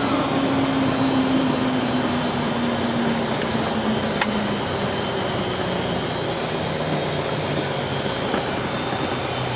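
Cessna 172's engine and propeller heard from inside the cockpit, running at low power, its pitch easing down over the first four or five seconds and then holding steady, over a constant cabin hum.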